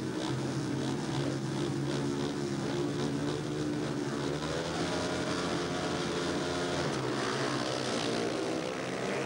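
Four speedway bikes' 500 cc single-cylinder methanol engines revving together at the start gate, with a pulsing beat in the early part. About halfway through the pitch climbs as the bikes launch off the start and race away.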